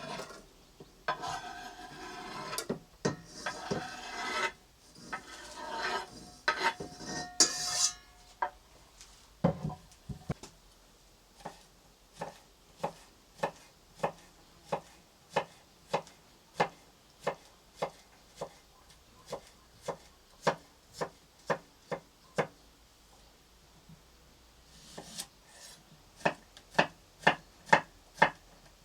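A few seconds of scraping, rasping strokes, then a knife chopping on a wooden cutting board in steady knocks about two a second. Near the end the chopping picks up to about three knocks a second.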